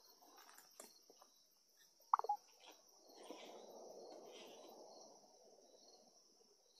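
Insects trilling steadily in a high continuous buzz. About two seconds in comes one brief, sharp chirp, and a soft rushing noise swells and fades over the next couple of seconds.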